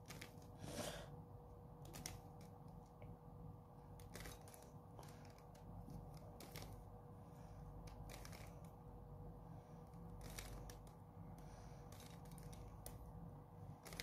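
Faint, irregular clicking and scraping of a plastic 3x3 Rubik's cube as its layers are turned quickly by hand.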